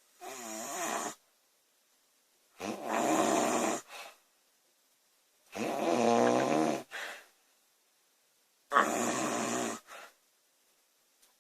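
A woman snoring loudly: four snores, each about a second long and about three seconds apart, most with a brief fainter rattle just after.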